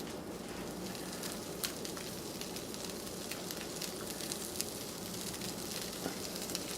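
Butter sizzling in a saucepan with granulated garlic just added: a steady soft hiss with scattered small pops and crackles.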